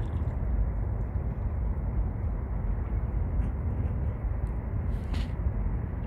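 Steady low outdoor rumble, even and without rhythm, with a brief faint higher sound about five seconds in.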